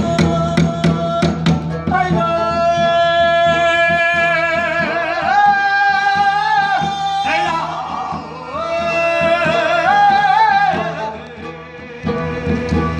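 A man singing long held notes that waver slowly in pitch, stepping up to a higher note midway and again later, with drum strokes at the start and returning near the end.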